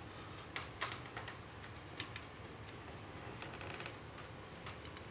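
Faint, scattered clicks and taps of hands handling a laptop's body, with a short run of quick clicks about three and a half seconds in.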